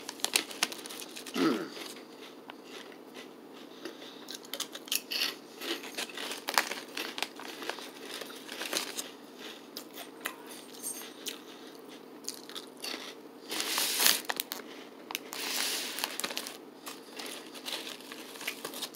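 Crinkling of a foil-lined snack bag as a hand rummages in it for chips, in scattered bursts with louder stretches near the end, mixed with the crunch of popped chips being eaten.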